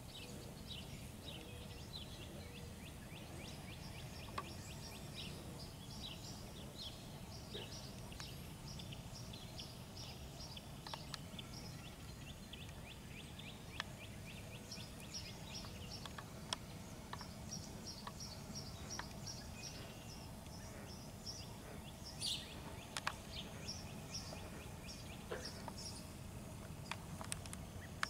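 Outdoor ambience: small birds singing series of fast, repeated high notes, coming and going over a steady low rumble, with a few faint clicks.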